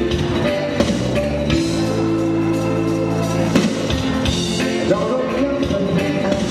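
Dance band playing a slow light-music (muzica ușoară) number, with long held melody notes over bass and regular drum beats.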